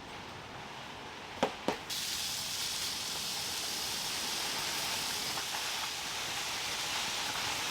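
Two sharp clicks, then, about two seconds in, a steady hiss of rain starts suddenly and carries on evenly.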